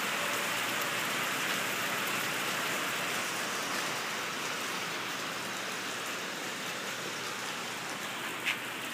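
Heavy rain pouring onto wet concrete and puddles, a steady hiss that slowly gets quieter as the rain eases off. One brief sharp sound stands out near the end.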